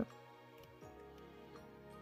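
Quiet background music with held notes.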